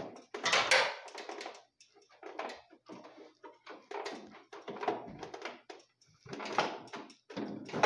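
Irregular clicks, knocks and rattles of the plastic cover and parts of a split-type air conditioner's indoor unit being handled as it is opened.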